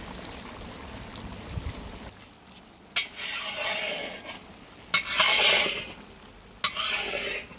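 Vegetables frying in a large metal kadai, stirred with a long metal spatula. A steady sizzle, then three stirring strokes, each a sharp clink of the spatula on the pan followed by about a second of scraping sizzle, the second stroke the loudest.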